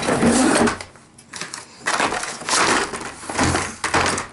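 Packaging being handled and crunched, in two rough stretches with a short lull between.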